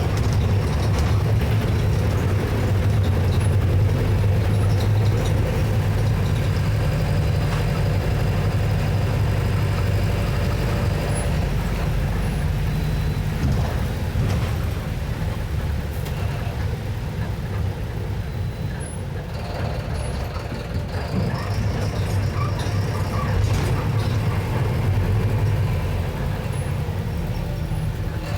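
Mercedes-Benz OF-1721 BlueTec 6 bus's four-cylinder diesel engine running, its low hum easing off a little past the middle and then building again.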